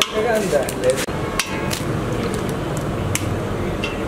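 Eggs being cracked on the rim of a stainless steel bowl: a few sharp, irregular taps, over background voices.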